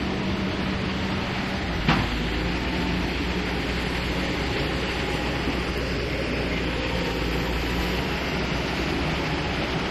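Tracked excavator's diesel engine running steadily, its low hum deepening about two seconds in, with one short sharp knock at that moment.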